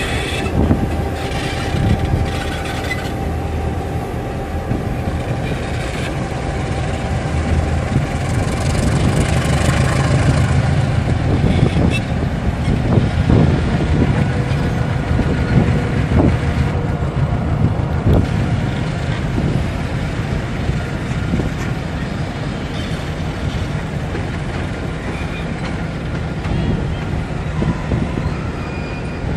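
Transnet Class 35-800 EMD diesel locomotives running in multiple, their engines giving a steady low drone, with empty flat wagons rolling past. It gets louder in the middle, where a run of clanks and knocks from the wheels and wagons comes through.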